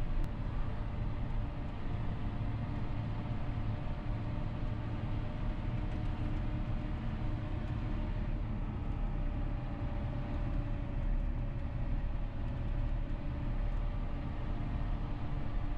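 John Deere 6R 215 tractor's diesel engine running steadily under load while pulling a no-till drill, a constant drone with a faint whine whose pitch shifts slightly about halfway through.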